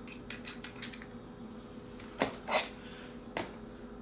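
Small clicks and taps of hands working on a 3DR Solo drone's plastic motor pod to remove it. A quick run of light clicks comes in the first second, then two louder clicks a little past the middle and one more near the end, over a faint steady hum.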